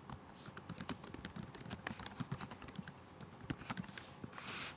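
Computer keyboard being typed on, a faint, irregular run of key clicks as a command ("unexamine") is entered into the chess-server client, with a short soft hiss near the end.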